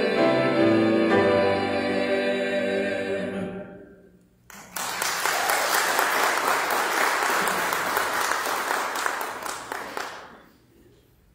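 A vocal trio of two women and a man holding a final chord that fades away, then after a short pause the congregation applauding for about six seconds before the clapping dies down.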